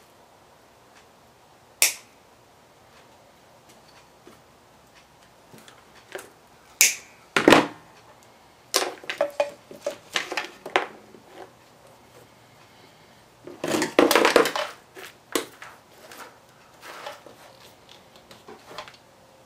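Hands working the wires of a computer power supply with a hand tool on a workbench. There is a sharp click about two seconds in, then scattered clicks, snaps and scraping rustles of wire and tool, with a longer rustle a little past the middle.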